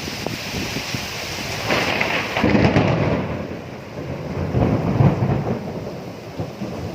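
Thunder rumbling over steady rain, with louder rolls about two and a half seconds in and again around five seconds in.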